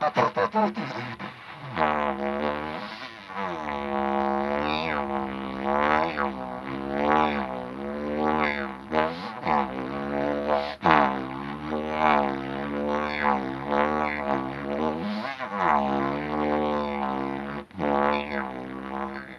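Spiral mango-wood didgeridoo being played: a steady low drone whose overtones sweep up and down in wavering, vowel-like shapes as the player changes the mouth, with a few brief dips.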